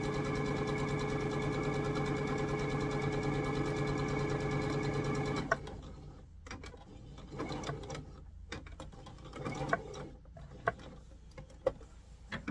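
Electric sewing machine stitching steadily, then stopping with a click about halfway through. Small clicks and handling noises follow as the fabric is worked by hand.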